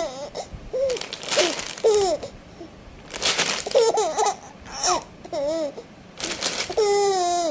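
A high-pitched, baby-like voice babbling and laughing in short bursts, with breathy noises in between.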